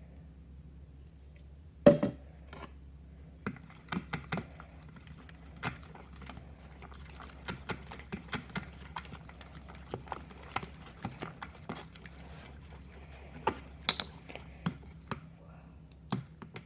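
Slime being stirred in a bowl just after activator is added: irregular clicks and taps of the stirring utensil against the bowl, with one sharp knock about two seconds in.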